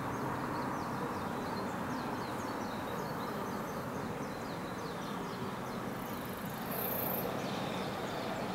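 Steady low rumble of a distant freight train hauled by an EF66 electric locomotive, still far off and approaching, under a constant outdoor hum. A bird calls throughout in many short, high, falling chirps.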